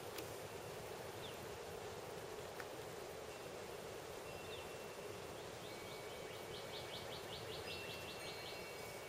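Quiet outdoor ambience: a steady low background noise with faint high bird chirps, including a quick run of chirps in the second half.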